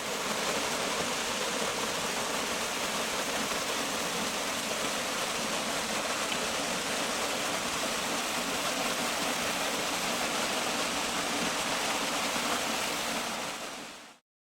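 Waterfall water pouring and splashing in a steady, even rush, fading in at the start and fading out shortly before the end.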